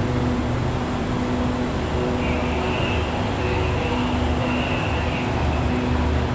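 Steady low rumble and hum of a standing passenger train's engines idling. A faint high tone comes and goes in the middle.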